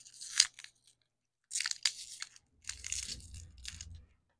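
Crinkly printed candy wrapper crackling as it is peeled off a green mango flavoured ball lollipop, in three bursts with short pauses between.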